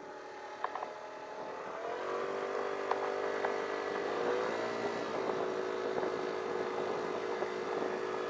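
Small motor scooter engine speeding up as the scooter pulls away, then running at a steady pitch while riding.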